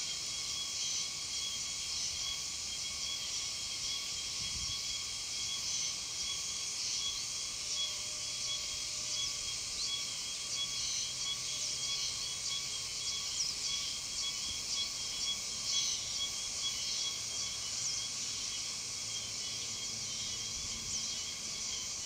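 Cicadas singing: a continuous high-pitched chorus with a steady pulsing tone, bird-like enough to be taken for birds. A late-season cicada still calling in November, expected to go on for about another month.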